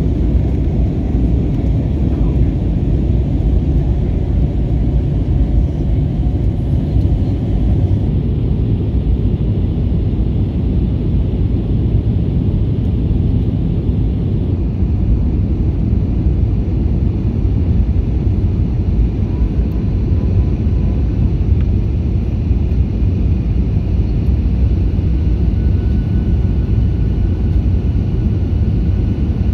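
Steady low rumble of cabin noise inside an Airbus A321 airliner on descent: the jet engines and airflow heard from a window seat.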